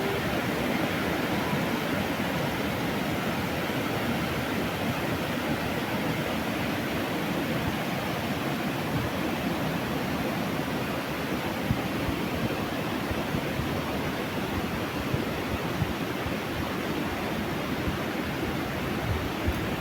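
Fast-flowing floodwater rushing: a steady, dense noise of churning water with no let-up.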